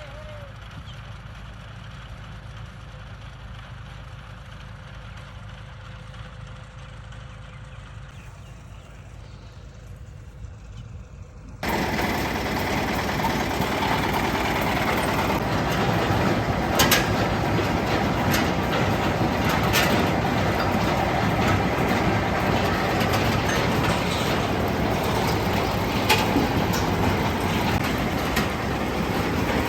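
Farm machinery running: a steady low engine rumble, then after an abrupt change about twelve seconds in, a much louder machine clatter with scattered sharp knocks.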